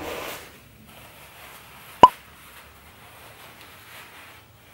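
Faint rustling of paper tissues being tucked into a shirt collar, with one short, sharp pop about two seconds in.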